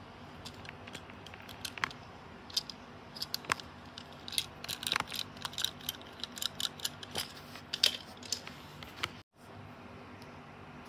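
Quick, irregular small clicks and taps of a Tomica die-cast toy car being turned over and handled in the fingers, busiest in the middle, broken by a brief silence near the end.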